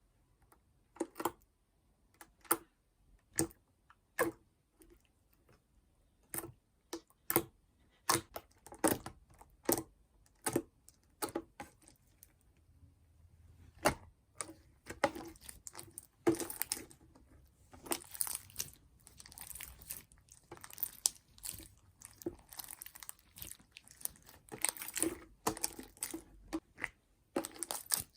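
Homemade slime being poked and squeezed by fingers: sharp separate pops about once a second at first, then denser crackling squishes from about halfway. Fingernails clicking on the slime are heard a lot.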